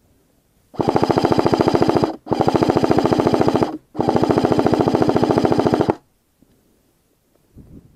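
Amoeba AM013 M4 Honey Badger electric airsoft rifle firing full-auto in three long bursts of rapid clicks, each one and a half to two seconds long, with short breaks between them.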